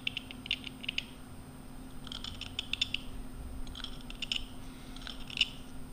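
Noga hand scraper scratching the sharp, rolled-over edge off a bronze bushing by hand, in quick short strokes that come in about four bursts.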